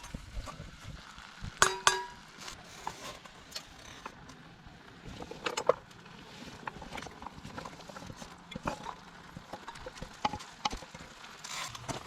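Metal camp cookware and utensils handled, with scattered clinks and knocks and one ringing metal clink a little under two seconds in.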